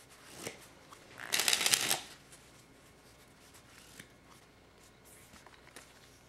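A deck of Infinitas playing cards being handled in flourishes. There is one brief burst of rapid card flutter about a second and a half in, then only a few soft clicks of cards.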